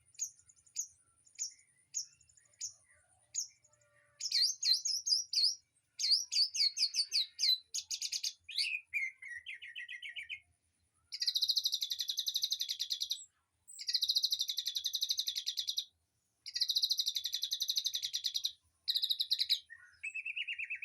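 Small songbirds calling and singing: a run of sharp chips about twice a second, then varied quick song phrases, then long fast trills lasting two to three seconds each, repeated with short gaps.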